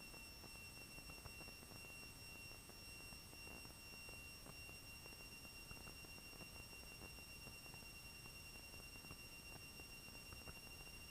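Near silence: a faint hiss carrying a few thin, steady high-pitched tones, with scattered faint ticks.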